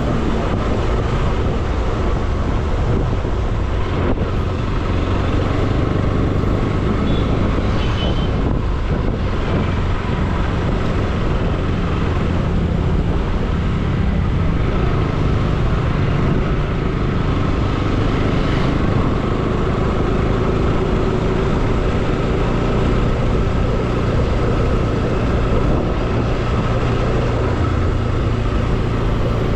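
Motorcycle engine running at a steady cruise while riding, with wind and road noise over it.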